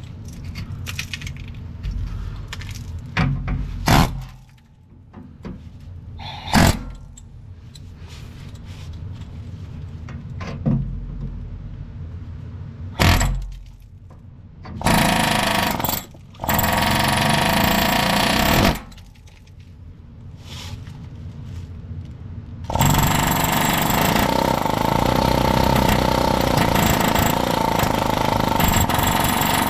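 Pneumatic air hammer (air chisel) hammering at rust-seized exhaust bolts. First come a few sharp single knocks, then from about halfway a short burst and a two-second burst, and steady rapid hammering through the last seven seconds.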